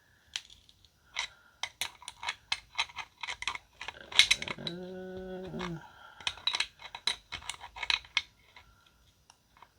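Metal-on-metal clicking and clinking of an adjustable wrench working a fuel-line fitting as it is tightened, in irregular sharp clicks a couple of times a second. About halfway through a person hums briefly for a second or so.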